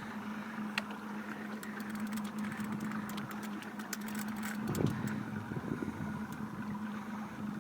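Steady low hum of a boat engine idling, with a quick run of sharp clicks through the middle and a brief rougher noise near the end.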